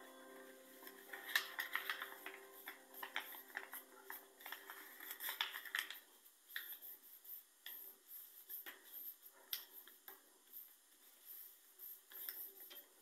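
Sheet of paper being folded by hand into an origami crane: crisp, irregular rustles and creasing clicks as the folds are made and pressed flat.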